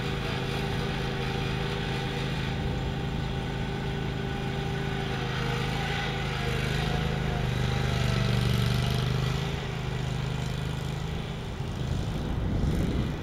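Riding lawn mower engine running steadily, a little louder in the middle, then fading near the end as the mower moves away.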